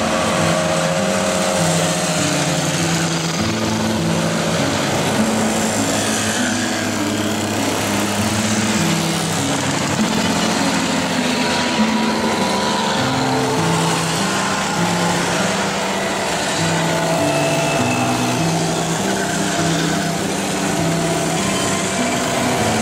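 A procession of classic two-stroke mopeds riding past one after another, many small engines running at once with overlapping notes that shift in pitch as each moped goes by.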